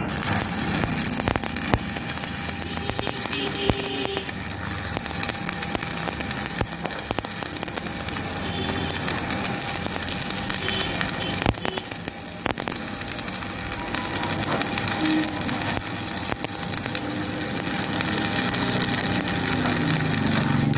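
Stick (shielded metal arc) welding on a steel tube: the electrode's arc crackling and spitting steadily as a bead is run.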